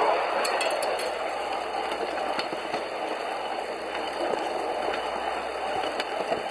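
Wheels of a 5-inch-gauge pedal-powered rail car rolling along the track: a steady rolling rattle, with a few sharp clicks about half a second in, around two and a half seconds in, and near the end.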